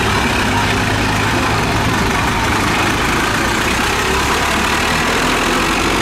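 Old Zetor tractors' diesel engines running steadily under load as they drive through deep mud, with crowd chatter behind.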